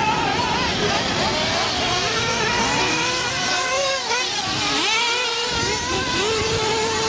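Several 1/8-scale nitro RC buggy engines racing at once, high-pitched and revving up and down, their overlapping whines rising and falling in pitch.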